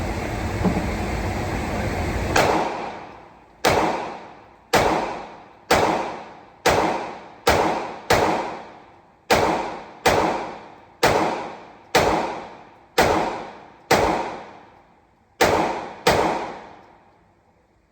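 About fifteen single shots from a 9mm Glock-clone pistol (G-Force Arms Exodus RPX9), fired at a steady pace of roughly one a second, each ringing out in a long fading tail. A steady rumble fills the first two seconds before the first shot.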